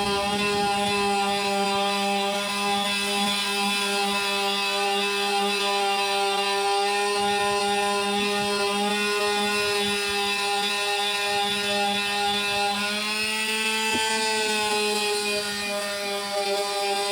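Electric sander running steadily on painted wood: a steady motor whine over the hiss of the abrasive stripping paint. The whine's pitch shifts briefly about thirteen seconds in.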